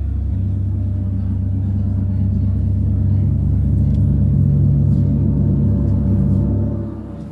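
Large hanging gongs, among them a planet gong marked with the Saturn symbol, played with felt-headed mallets by two players: a deep, sustained drone that swells and pulses in the middle, then dies down near the end.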